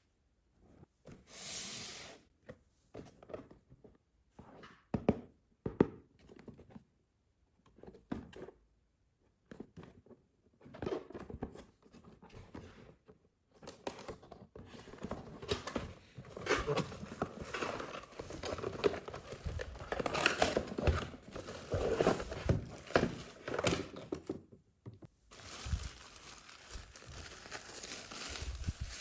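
Packaging being handled and opened: paper or plastic tearing and crinkling, with scattered taps and knocks, and a longer steady rustle near the end.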